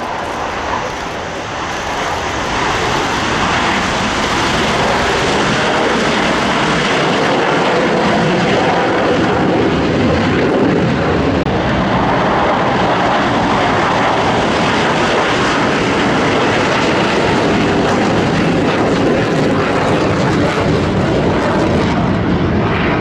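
Chengdu J-10 jet fighters' engines at high power during a formation takeoff. The loud, steady jet noise builds over the first few seconds and then holds.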